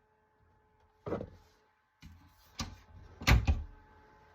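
A few short knocks and handling noises, the loudest a heavy thump about three seconds in.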